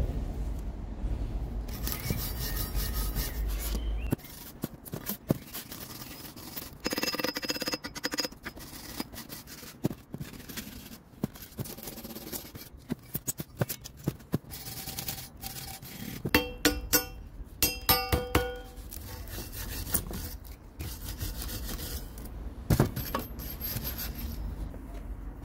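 Hand wire brush scrubbing rust off a motorcycle's tubular steel engine guard in irregular back-and-forth strokes. About two thirds of the way through come a handful of sharp clinks, with the steel ringing briefly.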